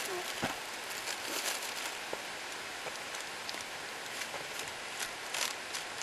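Plastic wrapping of a suction catheter crinkling and crackling as the packet is opened and the clear tube pulled out, a scatter of sharp crackles over a steady hiss.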